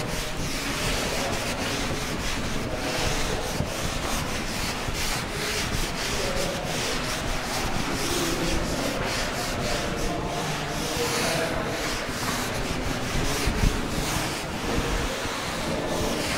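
Chalkboard eraser rubbing chalk off a blackboard in repeated back-and-forth strokes.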